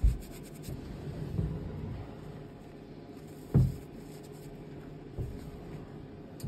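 Reformed gym chalk being crushed in a hand and sifted through the fingers into a bowl of loose chalk powder, with a few faint crackles near the start. Two dull thumps, one at the very start and a louder one about three and a half seconds in, stand out above the soft crumbling.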